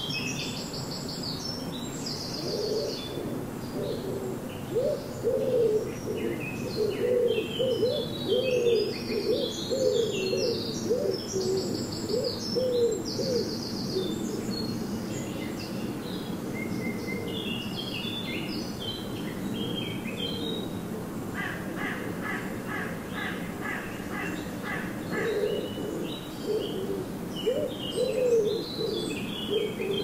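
Several garden songbirds singing over one another, with quick high chirps and warbles throughout and a rapid trill a little after two-thirds of the way in. Low repeated cooing notes join from about five seconds in until about halfway, and again near the end.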